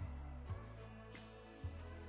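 Background music: a bass line of held low notes under a beat with a sharp hit about every second.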